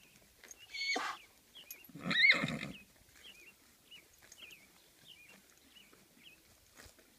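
Horse whinnying twice: a short call about a second in, then a longer, louder whinny just after two seconds.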